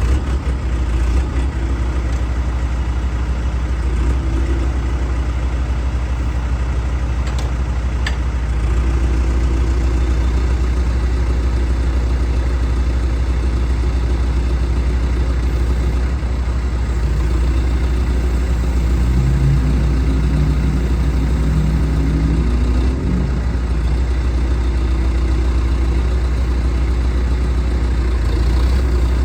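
John Deere 410J backhoe's diesel engine running steadily, picking up a little about nine seconds in, its pitch shifting up and down for several seconds in the later half.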